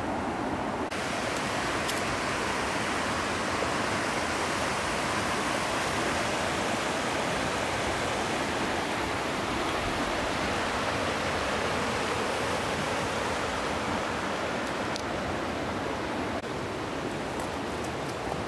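Steady rushing of the East Fork of the San Gabriel River, an even hiss of flowing water that grows brighter about a second in.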